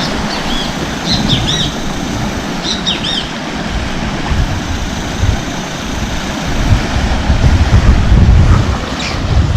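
Sea surf and wind on the microphone, with a low rumble that swells about seven seconds in. A bird chirps a few times in the first three seconds and once more near the end.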